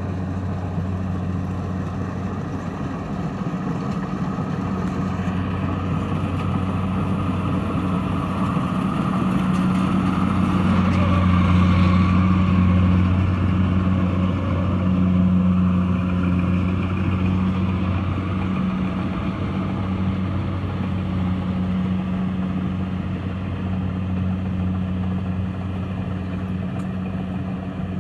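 Kubota DC-70 Plus rice combine harvester's diesel engine running with a steady low hum. It grows louder to a peak about twelve seconds in, then eases back.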